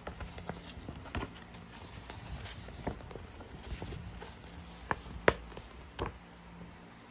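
A large folded glossy paper poster being handled and turned over: scattered paper crackles and light taps, with the sharpest snap a little after five seconds in.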